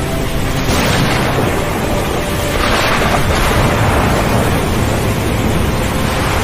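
Thunderstorm ambience: a steady rush of rain and wind, with two swells of thunder, one about a second in and a bigger one around three seconds in. Faint held music tones sit underneath.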